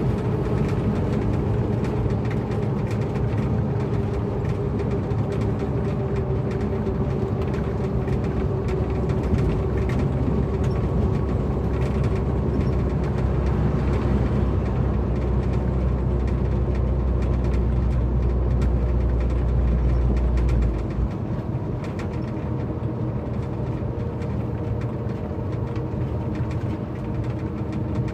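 A heavy tow truck's engine droning steadily at highway speed, with road noise, heard inside the cab. About three-quarters of the way through, the deep drone drops away and the sound gets a little quieter.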